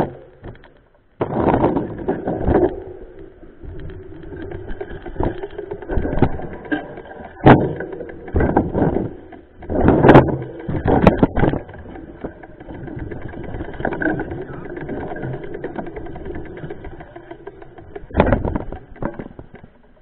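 Mountain bike ridden over a rough, muddy forest trail: the bike and camera mount rattle steadily, with repeated knocks and bangs as the wheels hit bumps, loudest about seven and a half and ten seconds in.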